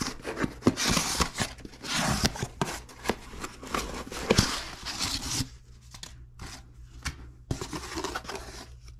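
Cardboard shipping box being torn open by hand, its flaps ripping and scraping in a run of rustling bursts. After about five seconds this gives way to quieter scuffs as the packing foam inside is handled.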